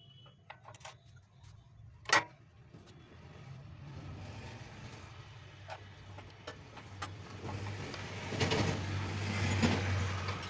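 Hand-work noises on a cut-off saw: scattered metal clicks from a screwdriver and the saw's arbor and guard, with one sharp metallic clink about two seconds in. A steady low hum runs underneath, and a louder scraping, rattling handling noise builds near the end as the guard is moved.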